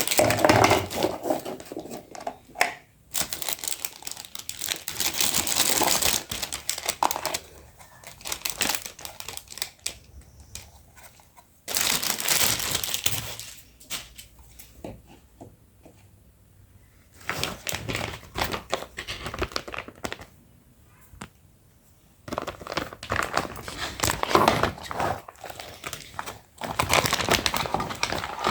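Plastic packaging being crinkled, handled and torn open in bursts, with quieter pauses between handlings.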